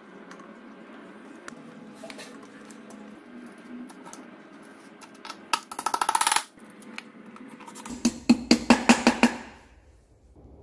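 Metal wheel-mounting hardware clinking and rattling on a go-kart's steel wheel hub, with a quick burst of rapid clicks about halfway through and a run of about eight sharp clicks near the end.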